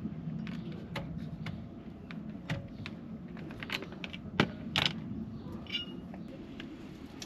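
Hand tools clinking and knocking against metal: scattered sharp metallic taps and clicks, with a louder knock about four seconds in and another soon after.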